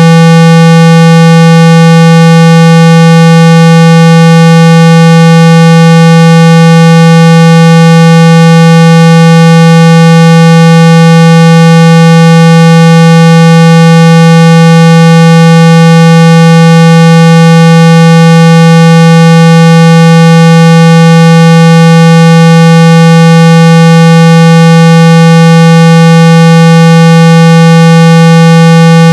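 A steady 165 Hz speaker-cleaning tone at full volume: a low, buzzy hum with many overtones, meant to vibrate dust and water out of a phone speaker.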